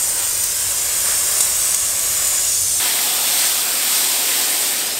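Garden hose spray nozzle hissing steadily as a jet of water sprays onto the sawdust packing around bare-root fruit trees.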